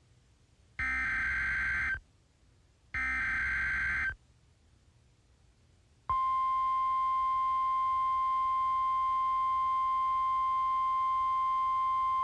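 Two harsh buzzing bursts of EAS/SAME digital header data, each about a second long with a second's gap, announcing a new weather alert. After a two-second pause, a steady single-pitch 1050 Hz NOAA Weather Radio warning alarm tone begins about six seconds in and is still sounding at the end.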